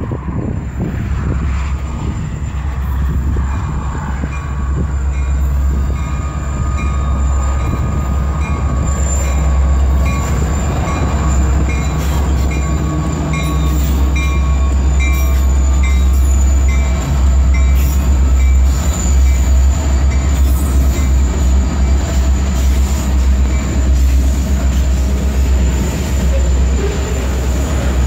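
A group of diesel-electric freight locomotives approaches and passes close by, their engines droning steadily and growing louder through the middle, then loaded centerbeam lumber flatcars roll past on the rails with some high wheel squeal.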